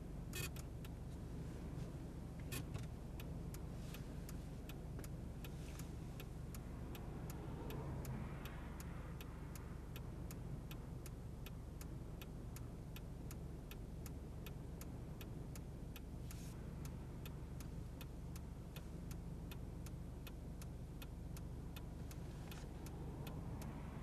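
Steady low rumble of blizzard wind and road traffic, with a vehicle passing about eight seconds in. A regular light ticking, about two or three clicks a second, runs under it.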